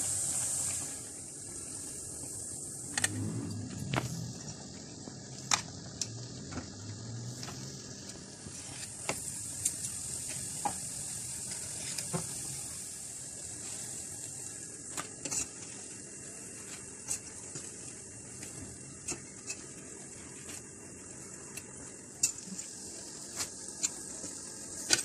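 Gram-flour and lentil batter fritters deep-frying in hot oil in a karahi: a steady sizzle, with sharp clicks here and there.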